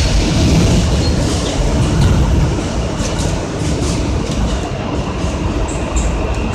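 R160A subway train running along the track, heard from inside the cab: a steady loud rumble with scattered clicks from the rails. A faint high whine comes in about halfway through.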